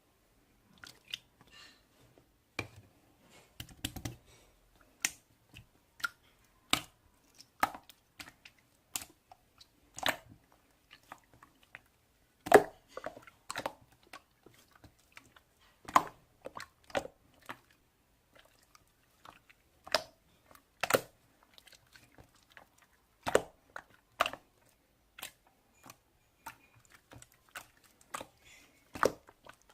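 Slime being squished and pressed by hand, giving irregular sharp pops and clicks, a few of them louder.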